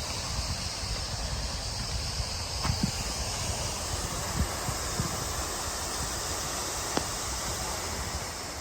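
Steady rushing of Marymere Falls' falling water, with wind buffeting the microphone and a few faint ticks.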